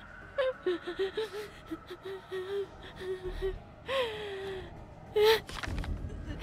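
A woman crying in fear: a run of short, high whimpers and sobbing breaths, with a longer falling cry about four seconds in and a louder gasping sob a little after five seconds.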